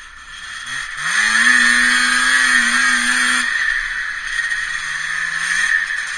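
Yamaha Phazer snowmobile engine revving up hard about a second in and holding at high revs for about two seconds over the rush of the track. It then backs off to lower revs, with a short rise again near the end.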